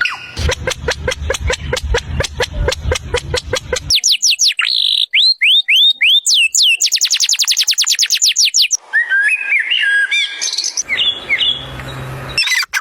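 Bird calls in a quick series of cut-together segments. First fast repeated notes, then a run of down-slurred whistles, then a rapid trill, and finally varied chirps.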